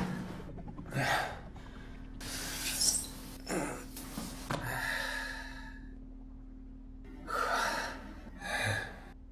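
A person breathing heavily: about six separate gasping breaths and sighs spread over several seconds, over a faint steady hum.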